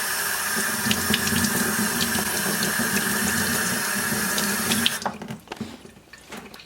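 Tap water running steadily into a sink while the water heater's pre-filter is rinsed of calcium, with a few small ticks; the tap is shut off suddenly about five seconds in.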